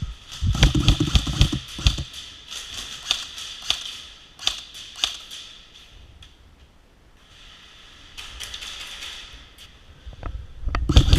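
Airsoft electric guns firing: a rapid burst early on, then scattered single shots and BB impacts about every half second, and another rapid burst near the end.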